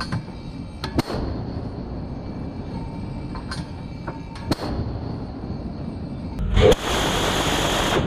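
A destroyer's 5-inch deck gun firing. There are two sharp reports about three and a half seconds apart, about a second in and midway, with fainter cracks between them. Near the end a loud, steady rushing noise sets in.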